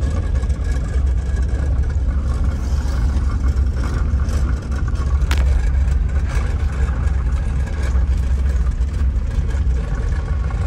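A small hatchback car being driven, heard from inside the cabin: a steady low rumble of engine and road noise.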